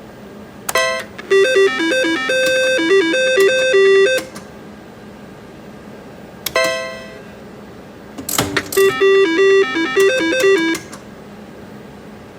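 Double Diamond slot machine's electronic sounds through two spins: a short stepping beep tune plays while the reels spin, and a single bell-like ding rings out and fades, with a sharp chime starting the second spin.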